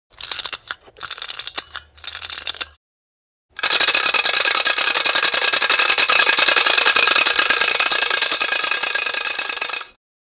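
Loud rattling noise in short irregular bursts for under three seconds, then after a brief gap a continuous dense rattle lasting about six seconds that cuts off suddenly.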